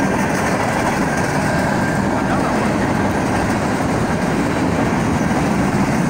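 Freight train cars rolling past at a road crossing: a steady rumble and clatter of steel wheels on the rails.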